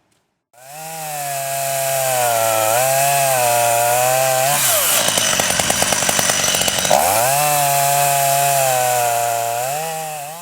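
Chainsaw in a small log mill, ripping along a log with its engine running under load and its pitch wavering. For about two seconds in the middle the note climbs and turns to a rough, rapid rattle, then settles back to the steady running.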